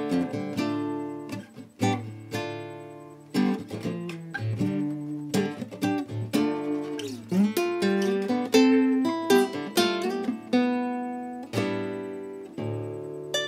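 Aria AC25CE acoustic cutaway guitar being played, a mix of strummed chords and picked notes ringing out, with a few bent notes about halfway through.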